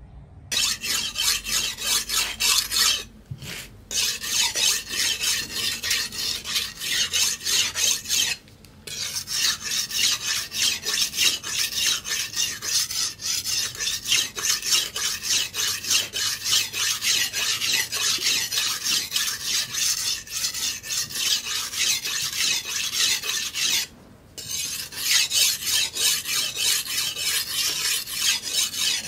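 Steel machete blade being sharpened by hand on a wet stone: fast back-and-forth scraping strokes, broken by three brief pauses.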